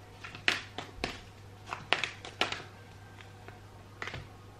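Oracle cards being shuffled and handled: a handful of short, sharp card taps and flicks at irregular intervals, over a faint steady low hum.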